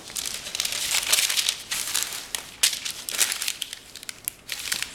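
A square of parchment paper being folded along its diagonals and creased, crinkling and rustling with irregular sharp crackles.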